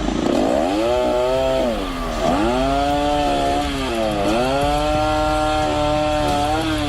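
Chainsaw running at high revs while cutting wood; its pitch drops sharply twice, about two and four seconds in, as it loads in the cut, then climbs back and holds.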